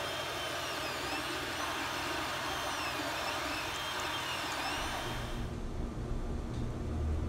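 Ender 3D printer running, its cooling fans hissing steadily while the stepper motors whine in repeated rising and falling glides as the print head moves. About five and a half seconds in this cuts off, leaving a low rumble.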